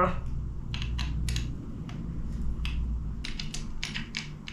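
Scattered light clicks and taps of 3D printer parts and screws being handled and fitted during assembly, over a low handling rumble that fades after about a second and a half.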